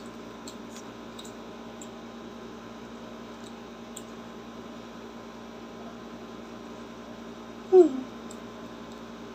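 A young girl eating with her fingers close to a clip-on microphone: faint small mouth and chewing clicks over a steady electrical hum. About eight seconds in she gives one short vocal sound that falls in pitch.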